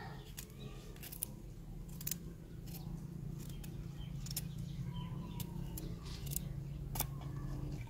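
Kitchen knife slicing through raw cauliflower stems held in the hand: about a dozen crisp snips at irregular intervals, the sharpest one near the end. A steady low hum runs underneath.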